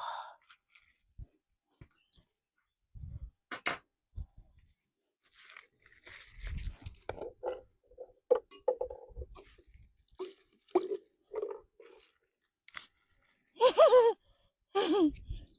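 Vegetables being chopped with a table knife: irregular crunching cuts and light knocks. A bird chirps repeatedly near the end.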